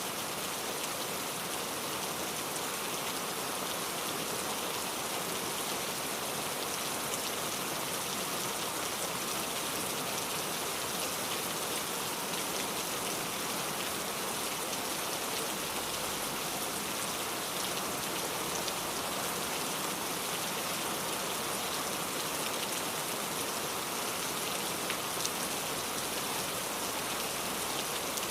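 Steady rain falling, an even hiss with fine drop ticks and no breaks or thunder.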